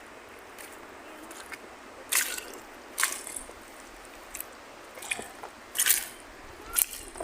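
Footsteps on a rain-soaked dirt trail: about five separate sharp steps at uneven spacing over a steady hiss.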